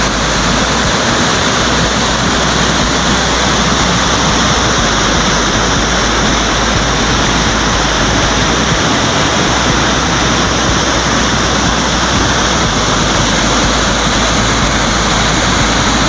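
Steady, loud rush of a waterfall in full flow, muddy floodwater pouring over rock ledges and churning around boulders.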